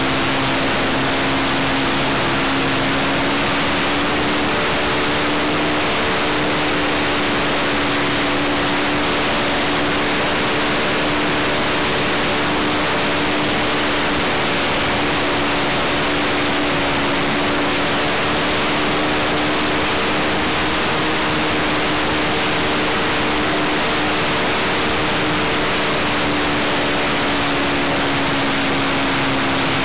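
Model aircraft OS 95V engine running steadily in flight, heard from a camera mounted on the plane, its pitch drifting slightly up and down. A loud, steady rush of wind runs under it.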